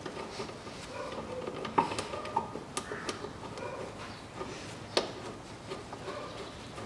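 Rubber air intake duct being worked into place by a gloved hand: faint rubbing and handling noise with a few light clicks and knocks, the sharpest about five seconds in.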